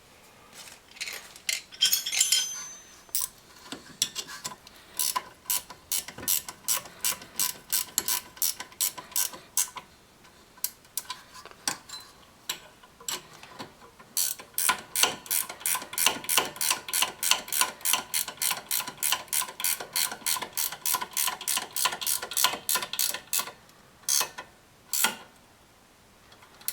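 Hand socket ratchet clicking as it runs in the 14 mm brake assembly bolts. The clicking is rapid and even, about three or four clicks a second, in two long runs with a pause between them.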